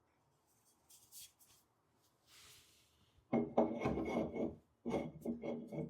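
Metal rubbing and scraping as an adjustable leg of a potter's wheel is worked into position: a few faint scrapes, then two longer, louder rasping bouts in the second half.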